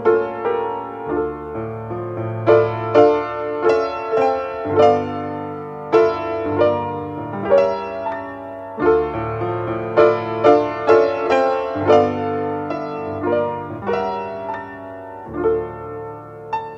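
Background piano music: a melody of struck notes that ring and fade, over low held bass notes.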